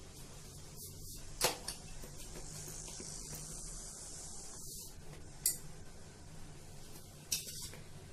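Hand patting and pressing rice-flour bhakri dough flat in a steel plate: a soft rubbing hiss for a couple of seconds in the middle, and three sharp clicks against the steel.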